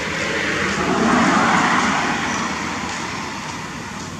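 A road vehicle passing by: a broad rushing noise that swells to a peak about a second in and then fades away.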